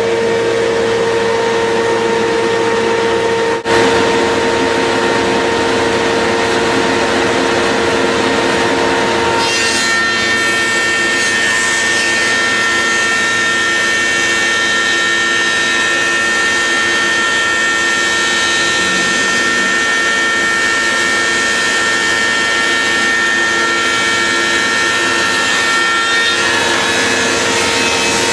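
CF 100SR multi-rip saw running steadily. About ten seconds in, the sound thickens with higher tones and a rougher noise as wood is sawn, easing back near the end.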